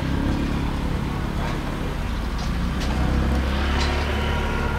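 Street traffic: a motor vehicle engine running close by with a steady low rumble, a few light clicks over it.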